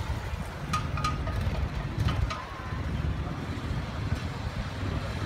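Street traffic: a motorcycle and a car driving past with their engines running, over a low wind rumble on the microphone. A couple of short high squeaks come about one and two seconds in.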